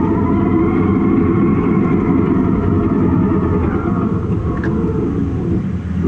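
Caterpillar bulldozer's diesel engine running steadily while the machine works, heard from inside the operator's cab; its pitch sags a little and it eases off slightly near the end.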